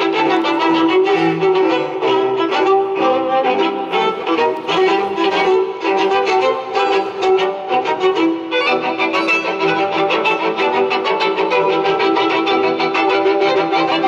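Small string ensemble of violins, cello and double bass playing classical music together, as recorded by a Sony RX100 IV compact camera. A sustained lower note runs under the upper lines, with a passage of quick, short bow strokes in the middle.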